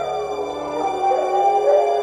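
Spooky Halloween background music: several held, wavering tones that slide slowly in pitch.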